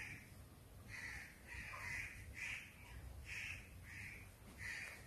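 A crow cawing over and over, a run of short caws about two a second.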